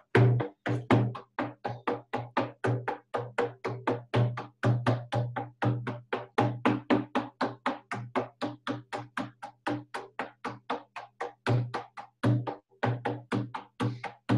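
Hand-held frame drum with a painted hide head beaten in a steady, rapid beat of roughly four strokes a second, each stroke with a low booming ring: shamanic journey drumming.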